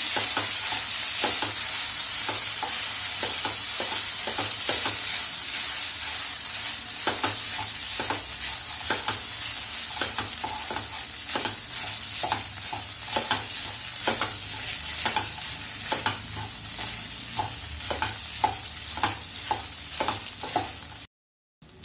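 Wooden spatula scraping and tapping against a non-stick frying pan while cooked broken wheat (dalia) is stirred and sautéed in hot ghee with cashews and almonds, over a steady sizzle. The scrapes come again and again at an uneven pace, and the sound cuts out briefly near the end.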